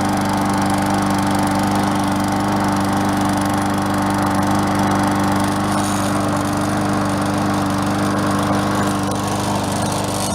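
MTD Yard Machines walk-behind mower's small engine running steadily at a constant speed.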